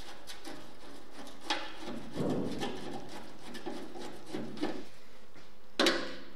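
Hand screwdriver turning a rusty screw out of a sheet-metal oven shell: grinding, scraping metal as the screw breaks loose, with a few small clicks. A sharper metallic knock comes near the end.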